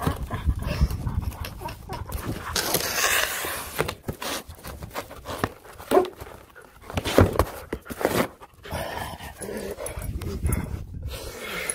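Siberian husky biting, tearing and dragging a cardboard shipping box: rustling and ripping cardboard with a spell of dense tearing noise early on, and a few sharp knocks in the middle as the box is bumped about.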